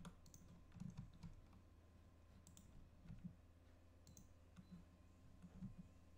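Faint, scattered computer keyboard key presses and mouse clicks, a few at a time, over a faint steady electrical hum.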